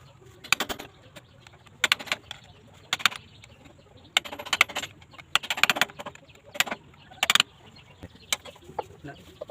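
Irregular metallic clinks and knocks, about a dozen of them, some ringing briefly: metal tools and parts being handled while a 175F diesel engine is repaired.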